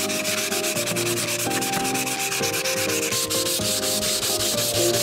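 Sandpaper rubbed by hand over an old wooden windowsill in rapid, even back-and-forth strokes, a steady scratchy rasp.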